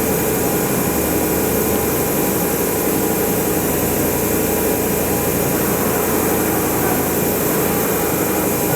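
Kitamura Mycenter 3XG vertical machining center running as its axes traverse, a steady mechanical whir and hum that does not change.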